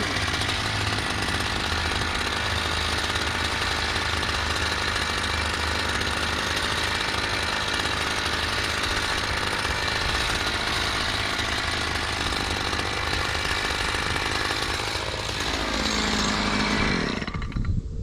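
Stihl HS56C gas hedge trimmer's small two-stroke engine running steadily, dropping in pitch near the end before it stops.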